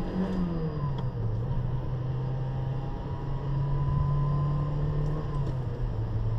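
1986 Toyota MR2's mid-mounted four-cylinder engine heard from inside the cabin while driving. Its steady note drops in pitch about a second in and again near the end as gears are changed.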